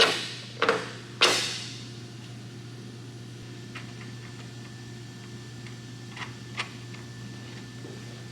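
Three sharp knocks in the first second and a half, then a few faint clicks, from hardware being handled while something is mounted with bolts, over a steady low hum.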